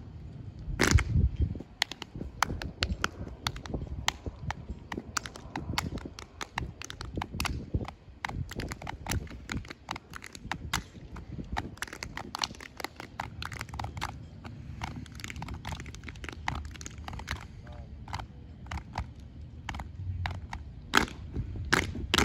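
Sharp body slaps, hand claps and heel stomps of an unarmed exhibition drill team, many quick hits in an uneven rhythm.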